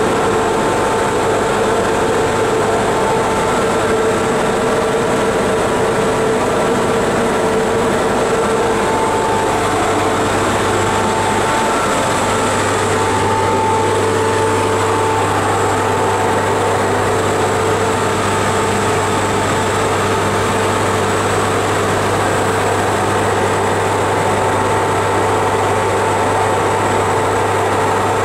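Steady, loud hum and whir of a series 461 electric locomotive's machine room, with its cooling fan motors running. A deeper low hum grows stronger about twelve seconds in.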